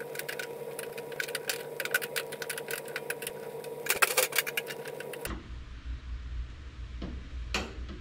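Rapid, uneven metallic clicking over a steady hum while the front hood latch of a 1961 VW Beetle is tightened down, stopping abruptly about five seconds in; two single clicks follow near the end.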